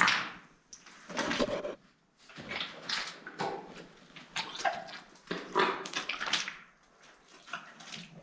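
Boots wading through ankle-deep oil sludge, each step a wet squelch and slosh, about six uneven steps.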